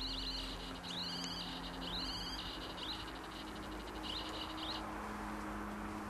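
Handheld Gauss (EMF) meter's speaker giving a high-pitched chirping crackle in short irregular bursts, which stops abruptly near the end. It signals a burst of field readings on the meter.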